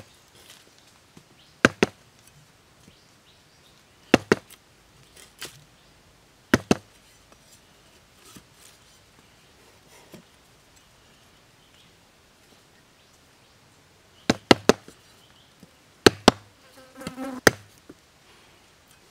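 A machete blade chopping and shaving a bamboo stick against a log, making sharp, irregular knocks one or two at a time with pauses between. There is a brief low buzz near the end.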